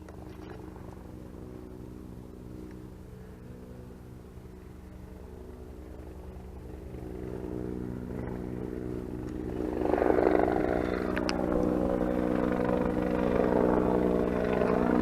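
Vehicle engine running steadily, growing louder from about six seconds in and stepping up again about ten seconds in.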